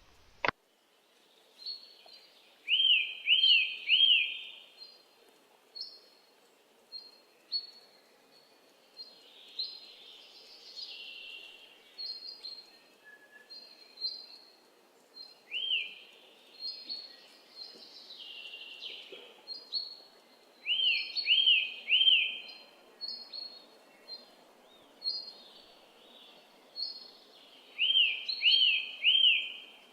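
Songbirds singing: many short high chirps, with groups of three quick arched whistled notes coming back every few seconds, over a faint steady hiss.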